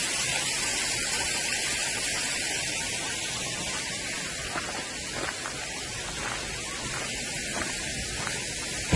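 Steady hiss of a thin flow of water splashing down the rocks of a nearly dry waterfall, with a few faint clicks partway through.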